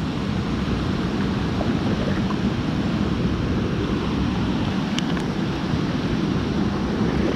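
Mountain stream rushing steadily over boulders and a small cascade into a pool, a continuous rush of water heaviest in the low end.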